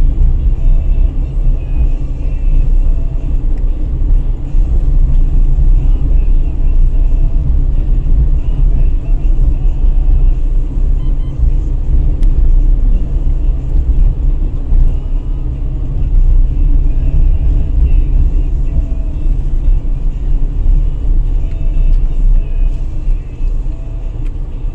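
A car driving on city streets, heard from the moving car: a steady low rumble of engine and tyres.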